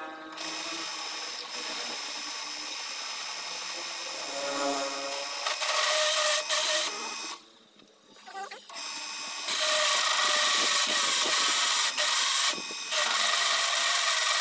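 A drill press turns a hole saw that cuts into a steel motorcycle brake disc, a steady harsh metal-cutting grind with a thin whine. It grows louder about five seconds in, stops for a couple of seconds midway, then resumes loud with one brief break.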